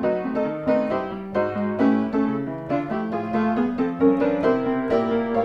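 Background piano music, with notes and chords struck a few times a second.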